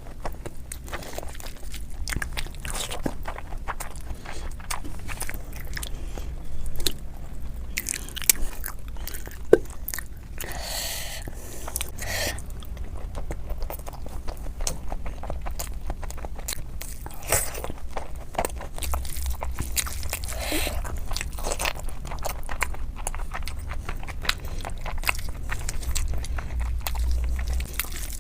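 Close-miked eating: a person biting and chewing spicy chicken curry with rice, with crunches and small clicks all the way through.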